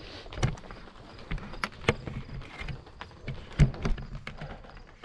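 Irregular knocks and rustles close to the microphone, the loudest about half a second in and about three and a half seconds in, over a faint high pulsing chirp.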